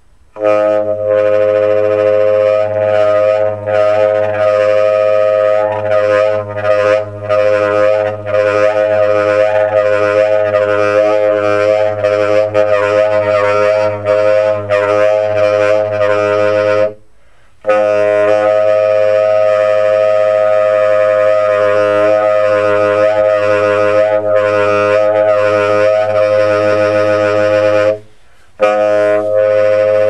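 Solo tenor saxophone playing long, steady, drone-like sustained tones with little change in pitch, broken by two short pauses, one about halfway through and one near the end.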